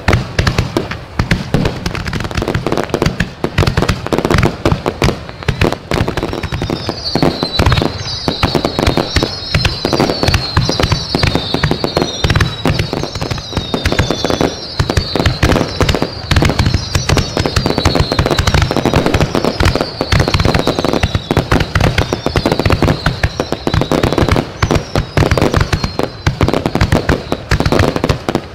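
Fireworks going off in a dense, continuous run of bangs and crackles. From a few seconds in until near the end, high whistles falling in pitch repeat about once a second.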